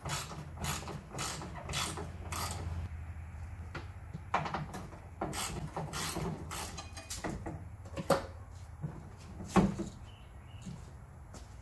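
Hand-tool work on a car's raised hood and engine-bay fittings: evenly spaced mechanical clicks, about two a second, for the first couple of seconds, then irregular clicks and creaks, with two sharp metal knocks near the end.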